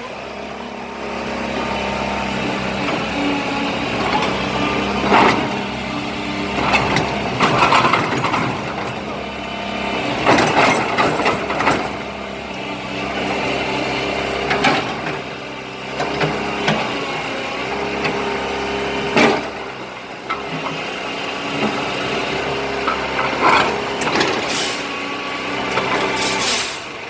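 Kobelco SK04 excavator running and being worked through its hydraulic movements after a hydraulic system recondition: a steady engine hum whose pitch shifts as the hydraulics take load, with several short, sharp hissing bursts.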